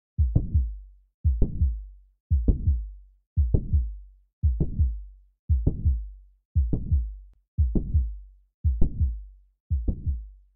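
Recorded heart sounds heard through a stethoscope: ten slow, even beats, about one a second. Each beat is a cluster of low thuds with sharper clicks among them.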